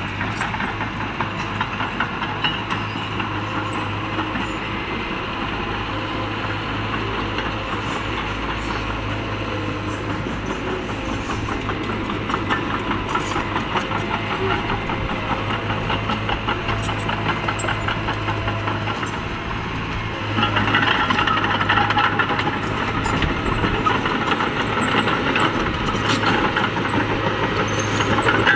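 Small crawler bulldozer working dirt: its diesel engine runs with a steady drone under a continuous rhythmic clatter of the steel tracks. The clatter grows louder about two-thirds of the way through as the machine comes close.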